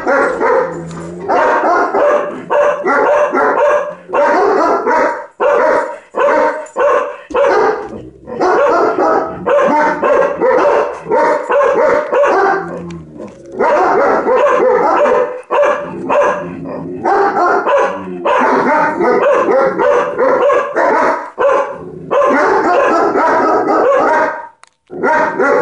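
German shepherd barking rapidly and excitedly, in long runs of barks broken by a few short pauses.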